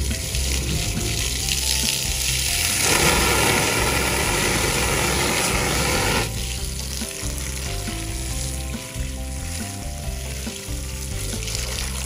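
High-pressure water jet hissing as it blasts down into a sink drain pipe, flushing grease and debris out of it. The jet is loudest from about three to six seconds in. Background music plays underneath.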